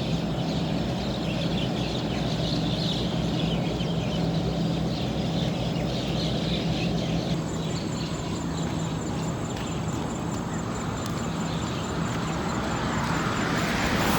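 Outdoor roadside ambience: a steady low engine hum with faint high chatter over it, and a passing vehicle growing louder near the end.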